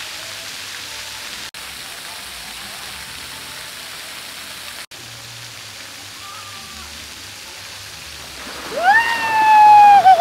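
Steady rushing noise like running water, then about eight and a half seconds in a loud, long cry from a person's voice that slides slowly down in pitch.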